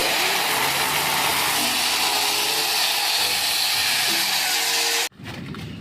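A steady, even hissing noise that cuts off abruptly about five seconds in.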